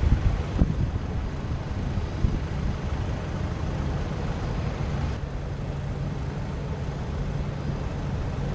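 Steady low drone of a large cruise ship's Sulzer diesel engines as it passes under way, with a constant low hum. A few low gusts of wind buffet the microphone in the first couple of seconds.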